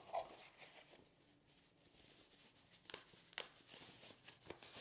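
Faint rustling and crinkling of a white foam packaging sleeve as it is lifted from a cardboard box and unwrapped by hand, with a few sharp clicks in the second half.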